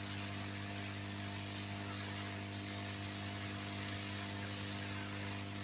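Hot air rework gun blowing a steady hiss as it heats the TV's sound amplifier IC to desolder it from the board, over a steady electrical hum.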